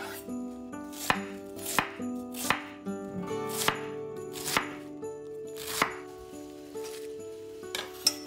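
Knife chopping on a cutting board: single sharp cuts about a second apart, some eight in all, the loudest close to the middle. Soft background music plays under the cuts.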